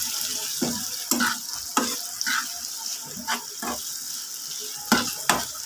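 Sliced onions, tomatoes and whole green chillies sizzling in oil in a frying pan. A metal slotted spatula stirs them, scraping and knocking against the pan several times at irregular intervals.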